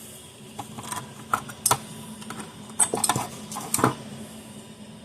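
Pliers and small metal parts clicking and clinking as a fence charger's circuit board is handled on a workbench: a dozen or so irregular sharp clicks, with louder clinks about a second and a half in and again near four seconds.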